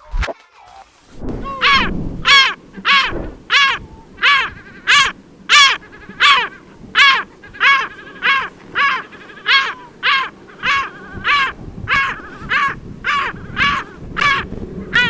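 Caspian gull giving a long series of harsh, repeated laughing call notes, nearly two a second, beginning about a second in.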